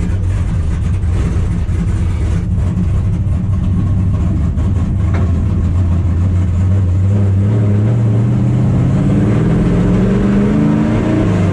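900-horsepower NASCAR race truck's V8 heard from inside its bare cab, running steady and low at first, then rising steadily in revs through the second half as the truck accelerates.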